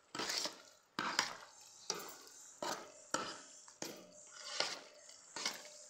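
A spoon stirring penne pasta and thick béchamel sauce in a large stainless-steel pot, scraping through the pasta and against the pot with each stroke. About eight strokes, a little more than one a second.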